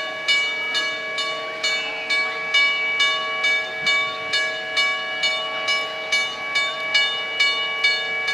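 Steam locomotive dressed as Thomas the Tank Engine rolling slowly past, chuffing evenly a little over twice a second, with a steady several-note whistle held throughout.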